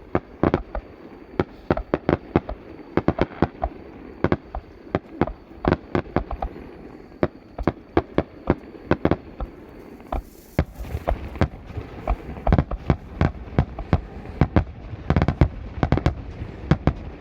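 Fireworks shells bursting in a rapid, irregular series of bangs, with a denser cluster near the end.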